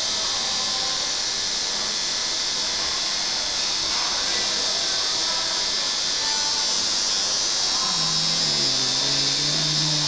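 Electric tattoo machine buzzing steadily as its needle works into skin.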